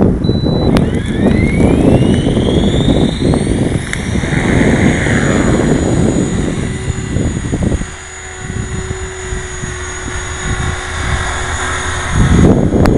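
Radio-controlled model helicopter in flight, its high-pitched motor and rotor whine rising in pitch over the first few seconds, then holding steady.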